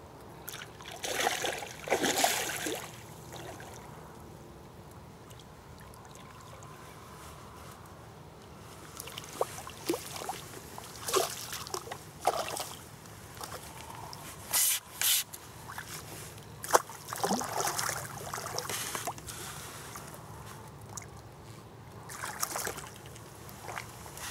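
Water splashing and sloshing in irregular bursts, with scattered sharp clicks between them.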